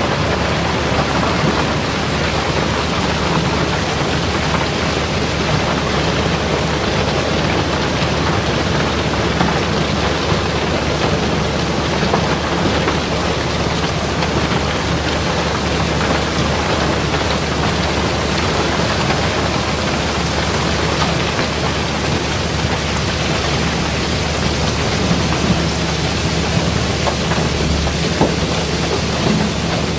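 River cobbles and crushed coal pouring continuously out of a barge's cargo pile, a dense steady rush and clatter of tumbling stones, with a steady low hum underneath.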